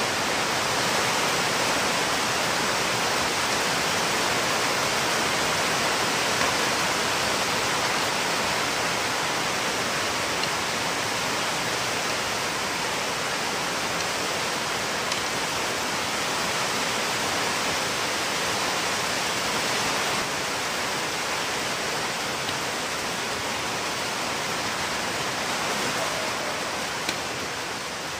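A steady hiss of noise, even and unbroken, with a faint click or two near the middle and near the end.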